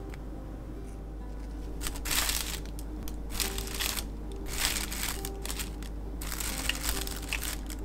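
Thin plastic bag crinkling in repeated bursts as it is handled and Oreo cookies are put into it, starting about two seconds in, over soft background music.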